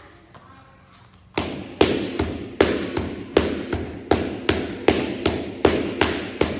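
Boxing gloves smacking into focus mitts in fast one-two punches. They start about a second and a half in and run at about two and a half smacks a second, alternating stronger and weaker.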